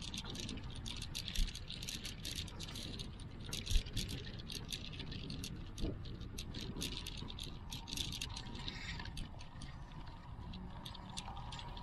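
Dense, irregular crackling clicks that thin out near the end, over a steady low rumble.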